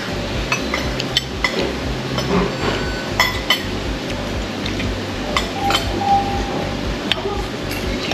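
Metal forks and knives clinking and scraping against plates while people eat, with a few sharp clinks scattered through. A steady low hum runs underneath.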